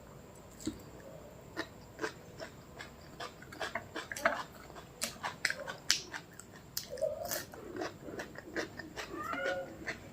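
A person eating close to the microphone: chewing with many sharp wet mouth clicks and smacks, which come thicker from about the middle on.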